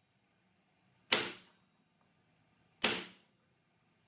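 Hammer striking a centre punch on a small steel plate, twice, each a sharp metallic tap with a short ring. The punch dents the rivet-hole marks so the drill will not scoot.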